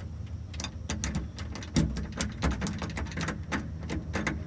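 A key clicking and scraping in the lock of a brass lever door handle as it is pushed in, jiggled and turned, giving many short irregular metallic clicks. The key will not work the lock properly and ends up stuck.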